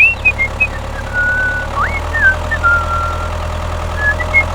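A steady low motor hum, with a run of high whistled chirps over it: short rising and falling glides and a few held notes.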